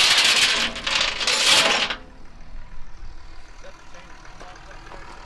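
Heavy steel chain clattering and jingling for about two seconds, then stopping.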